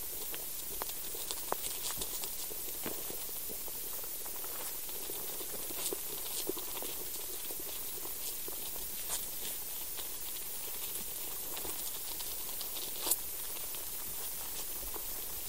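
Below-ground recording of soil life from a probe buried in the soil: a steady hiss dotted with many small clicks and crackles, with one sharper click about 13 seconds in.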